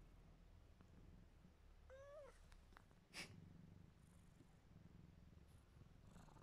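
A sleepy cat purring faintly, with one short, soft meow-like call about two seconds in. A single sharp click follows about a second later.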